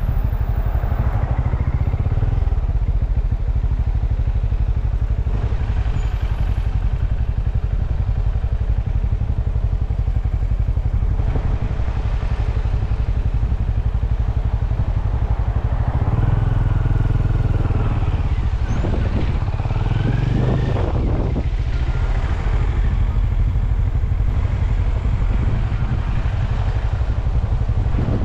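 Benelli Imperial 400's single-cylinder engine running under way as the bike slows into stopped traffic. Its revs rise and fall a few times about two-thirds of the way through.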